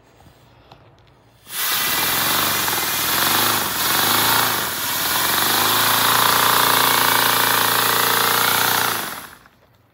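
Paper flat-four model engine running on compressed air from balloons: a loud rush of hissing air, much of it leaking out, starts about a second and a half in and cuts off near the end. Underneath is a wavering hum that settles into a steady one in the second half.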